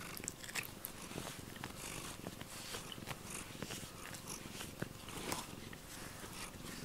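A cat purring steadily while its fur is brushed with a rubber grooming brush, the strokes adding a soft scratching and a few light clicks.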